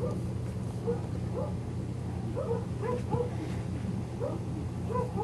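Kitten giving repeated short, squeaky mews while play-fighting and biting a hand, about a dozen brief calls scattered through.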